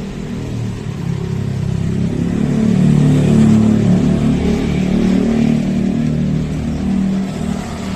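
Road traffic on a city street: a motor vehicle's engine passing close by, its rumble swelling a couple of seconds in and easing off near the end.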